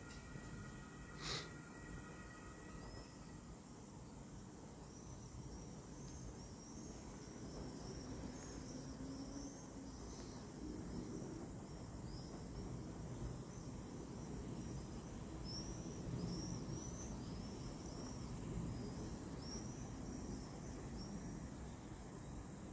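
Outdoor evening ambience: a steady low background rumble with a run of quick, high-pitched chirps repeating through most of it. A single sharp click sounds about a second in.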